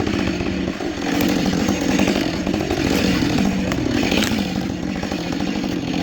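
Husqvarna 562 XP two-stroke chainsaw running steadily and loudly at high revs, with a brief dip in level about a second in.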